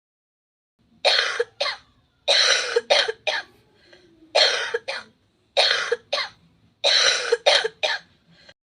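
A woman with a flu cough coughing over and over: about five fits of two or three coughs each, starting about a second in.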